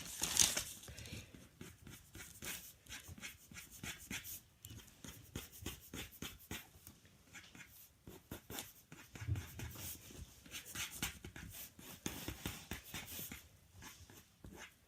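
Pen scratching on paper in many quick, short strokes, drawing fur texture.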